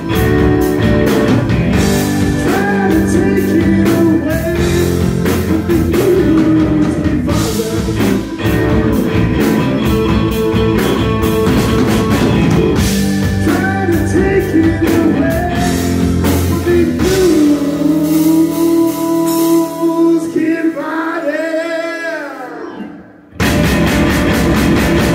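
Live blues-rock band playing at full volume: electric guitars, electric bass and a Tama Star walnut drum kit. Past the middle the bass and drums drop away, leaving guitar with bending, wavering notes, then after a brief near-silent gap the whole band comes crashing back in.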